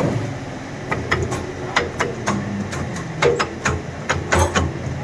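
Irregular sharp knocks and clanks from repair work on a toggle mechanism, a dozen or more strikes at uneven spacing over a low background rumble.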